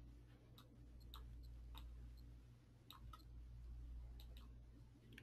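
Near silence: a faint low hum with about a dozen soft, scattered clicks.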